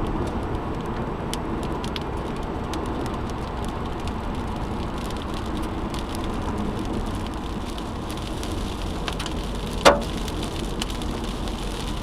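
Steady car road noise with rain and small hail ticking on the car's body, and one loud hailstone strike about ten seconds in.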